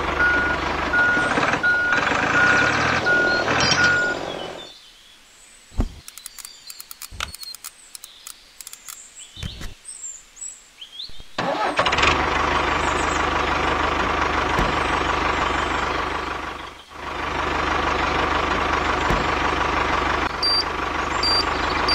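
A countdown timer beeping at an even pace, about one beep every 0.7 s, stops after about four seconds. A quiet stretch with scattered small clicks follows. About halfway through, a tractor engine sound starts and runs steadily.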